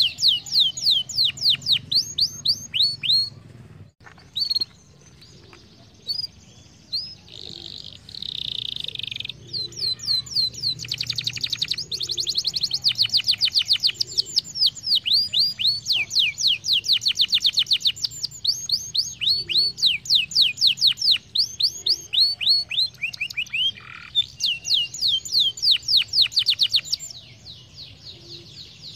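Canary singing: long rolls of rapid, evenly repeated down-sweeping notes, broken by a quieter stretch with a buzzy, rasping phrase a few seconds in, then rolling again, with a short pause near the end.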